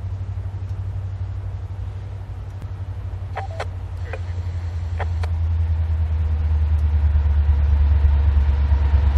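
Low rumble of an approaching freight train led by an EMD SD70M-2 diesel locomotive (16-cylinder EMD 710 two-stroke engine), growing steadily louder from about halfway through as the train nears.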